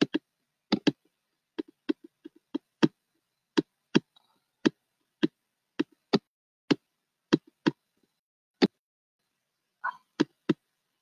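Irregular sharp clicks and taps of someone working a computer's keys, about twenty in all, singly and in quick pairs, with silence between them.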